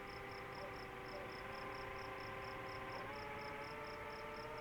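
The DJI FPV drone's motors whine in the distance, a steady several-toned hum that drops in pitch about three seconds in. An insect, likely a cricket, chirps over it in a rapid high pulse of about six a second.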